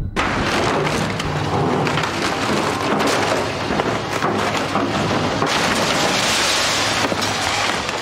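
Wooden fishing boat's hull being torn apart by an excavator: dense, continuous crackling and splintering of breaking timber.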